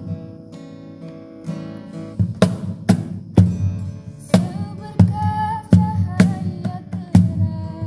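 Acoustic guitar strumming chords while a wooden cajon box drum is slapped in a steady beat. A young woman sings a melody over them partway through.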